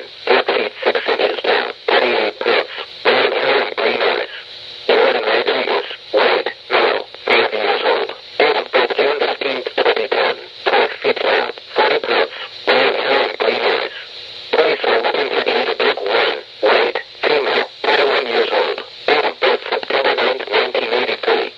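Emergency Alert System voice message over a noisy, narrow-band radio-like channel: choppy speech buried in static and hard to make out, with short pauses about four seconds in and again around fourteen seconds.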